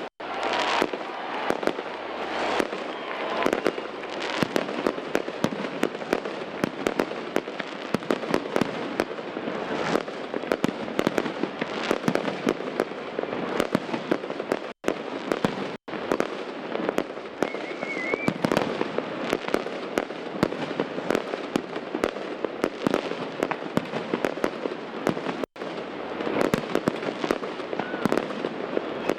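Fireworks display: a dense, continuous crackling and popping of many shells bursting at once. The sound cuts out very briefly three times.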